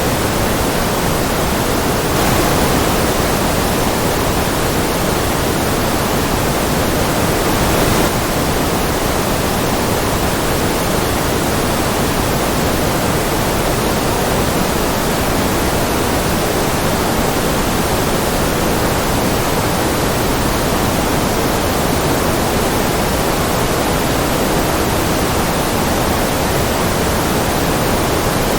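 Steady white-noise track: an even, unbroken hiss spread across all pitches, fuller in the lower middle and thinning toward the top, with two slight brief swells early on.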